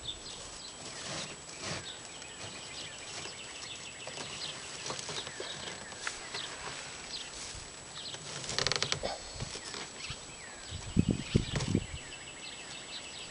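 Hand work on a homemade box hay baler: scattered knocks, scraping and rustling of hay, with a few heavier thumps near the end. High chirping calls sound throughout.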